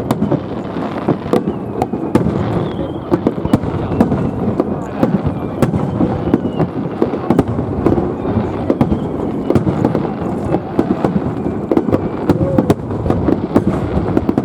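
Aerial fireworks bursting in a continuous barrage: a dense, steady rumble of booms with many sharp crackles on top.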